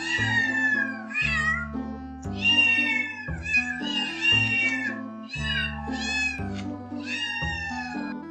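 Cat meowing repeatedly, about seven separate meows that mostly fall in pitch, over background music.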